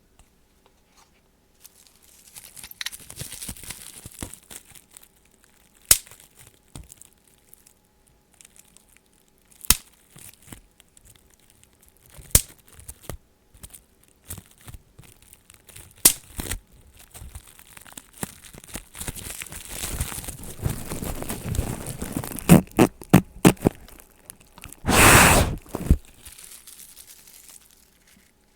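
A person making mouth noises close to the microphone: scattered sharp clicks and smacks, stretches of crackly hissing, and a loud hiss lasting about a second near the end.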